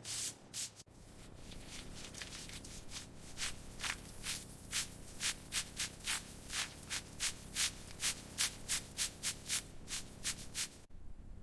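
Hand sanding with quick back-and-forth strokes, about three a second, the strokes growing sharper a few seconds in and stopping abruptly near the end.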